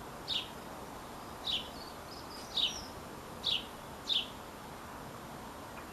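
A small bird chirping: five short high chirps at uneven intervals, with a few fainter notes in between, over a steady background hiss.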